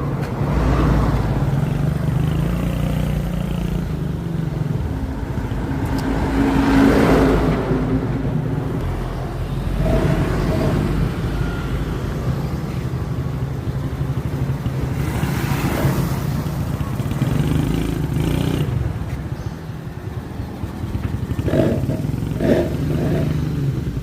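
Daihatsu Gran Max engine running through an aftermarket SUOS oval stainless-steel 'ngorok' exhaust, giving a deep, snoring exhaust note. It idles, swells with several revs, and gives two short throttle blips near the end.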